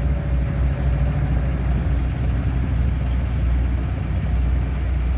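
Squarebody Chevrolet K5 Blazer engine running steadily at low speed, a deep, even rumble.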